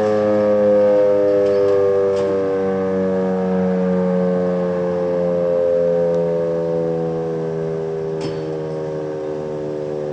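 Federal Signal Model 7 outdoor warning siren winding down, its tones sliding slowly lower in pitch and growing a little quieter toward the end.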